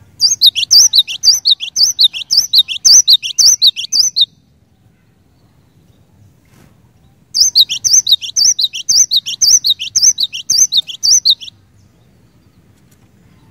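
Cinereous tit (glatik batu) singing: two bursts of a fast, repeated two-note whistled phrase, each note sliding downward, the first bout lasting about four seconds, then a pause of about three seconds before an equally long second bout.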